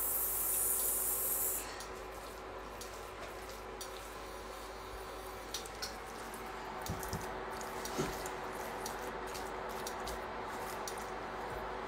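Silicone spatula stirring raw spice-marinated chicken wings in a ceramic baking dish: soft wet squishing with scattered light clicks, over a steady faint hiss. A louder high hiss runs through the first second and a half.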